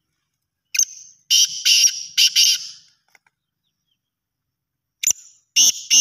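Black francolin calling: a rasping, high phrase of about five short clipped notes, given twice, about a second in and again near the end.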